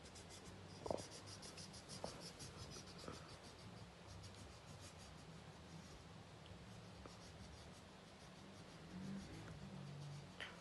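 Faint, rapid back-and-forth scribbling of colouring on a paper workbook page, the strokes thinning out after about six seconds.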